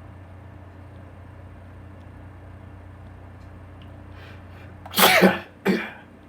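A man sneezes, set off by pepper: a few faint breaths in, then a loud sneeze about five seconds in, followed half a second later by a shorter second burst.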